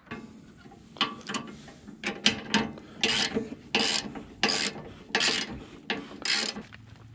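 Fine-toothed 90-tooth Kobalt ratchet wrench clicking as it is swung back and forth to tighten a bolt. After a few irregular strokes, it settles into a steady back-and-forth from about three seconds in, roughly one stroke every two-thirds of a second.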